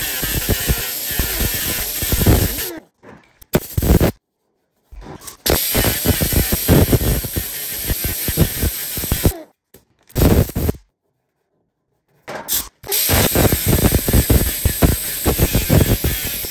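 Pneumatic angle grinder with an abrasive disc grinding welds flush on a patched fuel-filler hole in a sheet-steel truck cab: a steady hissing grind. It cuts off abruptly to silence twice and starts again.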